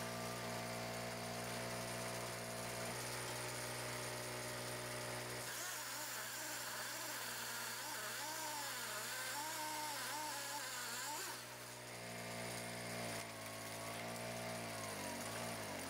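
Wood-processing machinery running with a steady motor hum. For several seconds in the middle the pitch wavers up and down as if under changing load, then steadies, and it falls away near the end.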